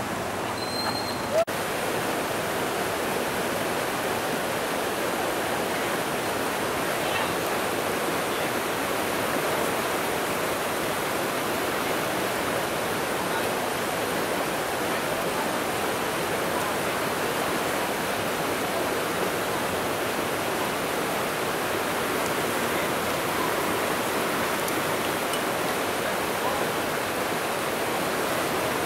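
Steady rush of a flowing river's current, an even hiss of water, with a brief sharp click about a second and a half in.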